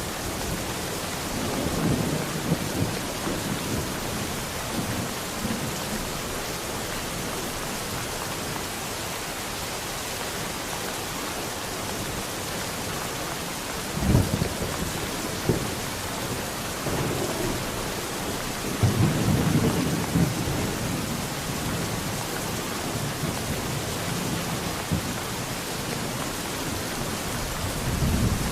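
Steady rain hissing throughout, with rolls of thunder rumbling low at intervals. The strongest comes about halfway through, a longer roll follows a few seconds later, and another comes near the end.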